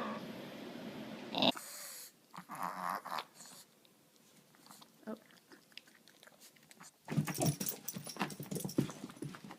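A dog making sounds, with a burst of rapid clicking and scuffling in the last few seconds.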